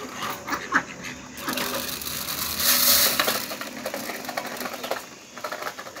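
Domestic ducks pecking and dabbling millet grains from a steel plate: a rapid, irregular clatter of bill clicks on the metal. About halfway through comes a brief rustling hiss.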